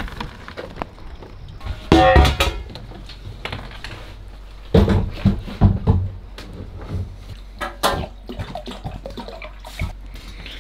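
Water poured from a plastic jug into a stainless steel pot, with a few knocks and clinks as the pot is handled.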